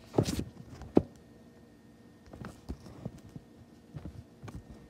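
Handling noise from a phone being repositioned: a brief rustle at the start, one sharp knock about a second in, then a few faint taps.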